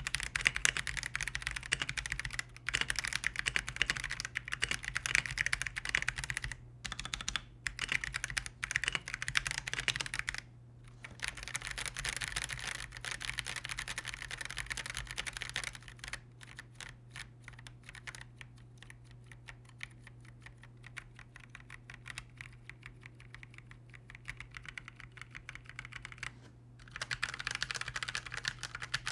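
Typing on an Akko PC75B Plus mechanical keyboard: a fast, dense run of key clicks with a few short pauses, softer and sparser for a stretch in the middle before picking up again near the end.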